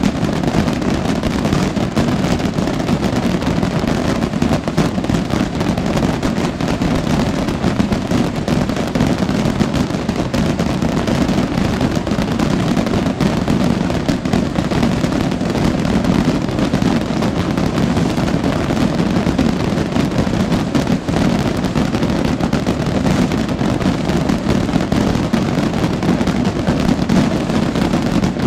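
A massed barrage of exploding firework rockets (voladores), so dense that the countless bangs merge into one steady, unbroken din.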